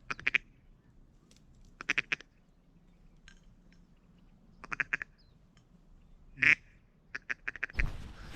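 Ducks quacking in short runs of a few quick quacks, about five times over the stretch.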